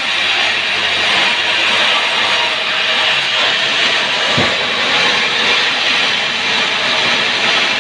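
Sawmill saw running with a loud, steady noise, most likely sawing through sengon wood, with one short knock about four and a half seconds in.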